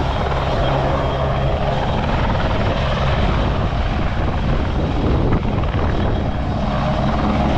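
RAF Puma twin-turbine helicopter running with its rotors turning: a loud, steady roar of turbines and rotor blades.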